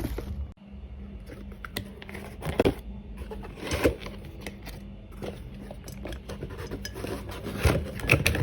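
Light knocks and clinks of small objects being handled, scattered irregularly, over a faint steady hum.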